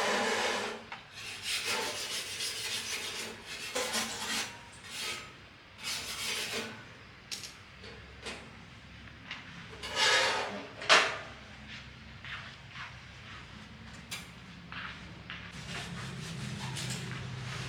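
Irregular rasping, rubbing strokes of hand work, with a sharp click about eleven seconds in and a low steady hum coming in near the end.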